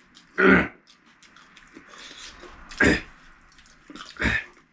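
Three short, loud mouth noises, about a second or so apart, from people hurriedly eating very spicy panipuri.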